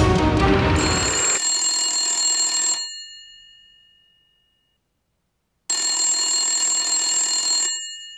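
Old desk telephone's bell ringing twice, each ring lasting about two seconds and dying away, with about three seconds of silence between them. The end of a music track fades out about a second in.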